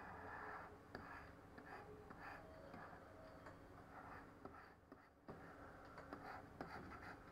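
Faint scratching of a stylus stroked across a Wacom Bamboo pen tablet, with a few light taps.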